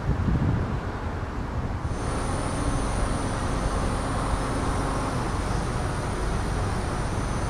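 Daihatsu Wake kei car on the move: steady road and engine rumble. About two seconds in, a brighter hiss with a thin high whine joins and holds steady to near the end.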